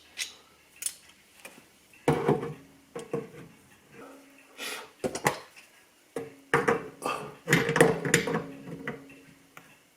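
Irregular knocks, clanks and scraping of tools and metal drain parts as a stuck kitchen sink drain fitting is worked loose; some knocks leave a brief ring.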